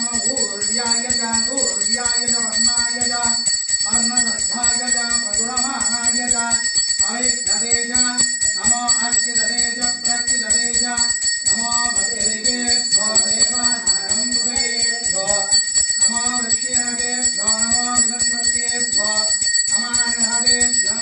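A temple hand bell rung continuously in a steady high jangle during a milk abhishekam of a stone Shiva lingam, with a voice chanting mantras underneath.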